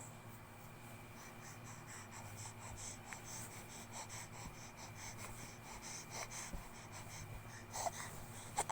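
A two-month-old baby breathing quickly and softly in an even rhythm of about three breaths a second, then giving two short little vocal sounds near the end.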